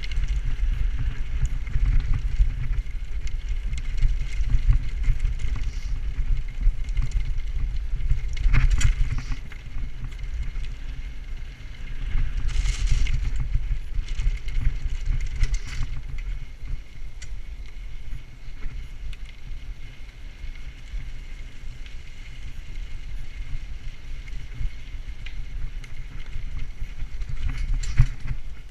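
Bicycle riding over a rough gravel and cinder railbed: a steady low rumble of tyres on the ground and a rattling frame, broken by a few sharp knocks and clatters over bumps.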